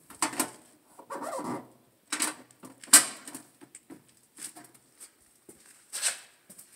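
A hand tapping and sliding on the cover of a wall-mounted wiring enclosure: a few sharp knocks, the loudest about three seconds in, and a short rubbing sound about a second in.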